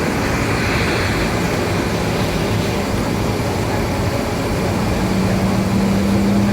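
Steady cabin noise inside an Avro RJ100 airliner. About five seconds in, a low hum joins it and rises slightly in pitch.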